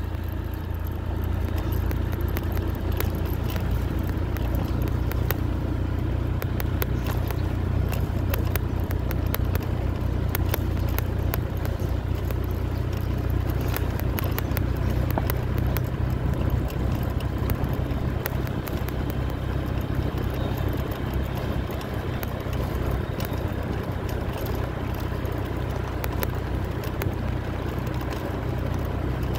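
Steady low rumble of a vehicle in motion, with wind and road noise on the microphone and scattered light clicks and knocks.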